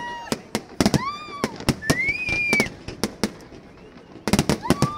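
Fireworks display: a rapid, irregular series of sharp bangs and crackles from bursting shells, with several high drawn-out tones, some rising in pitch, sounding over them.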